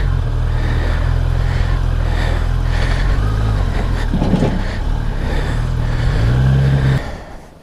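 Kawasaki ZX-10RR's inline-four engine running at low, steady revs while the motorcycle is eased onto a trailer, rising slightly just before it is switched off and cuts out suddenly about seven seconds in.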